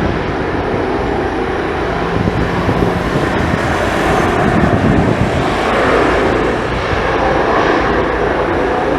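Airbus A330 twin jet engines at takeoff power, a loud steady roar.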